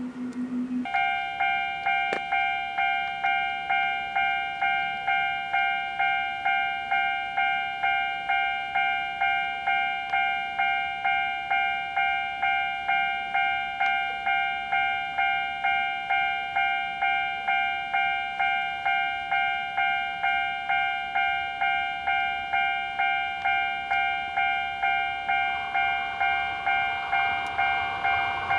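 Japanese railway level-crossing warning bell ringing, an electronic ding repeating about twice a second and starting about a second in. Near the end the noise of an approaching train rises beneath it.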